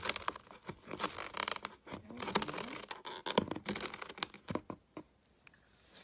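Cats pawing and scratching at a cardboard box: a run of scratchy rustles and clicks that stops about five seconds in.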